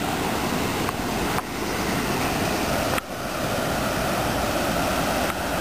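Floodwater rushing steadily, a continuous even hiss-like rush that dips briefly twice.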